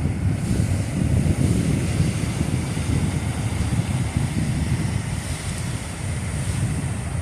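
Wind buffeting the microphone, with ocean surf washing against rocks behind it.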